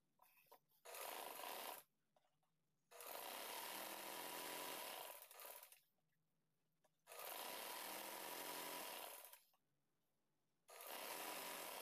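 Sewing machine stitching a seam through cotton fabric in four short runs, stopping and starting between them.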